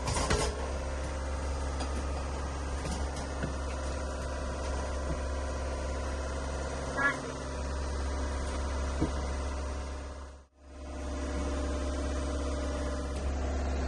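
Steady low drone of the sailboat's engine running under way, with a short high squeak about halfway through. The sound drops out for a moment about three-quarters of the way in.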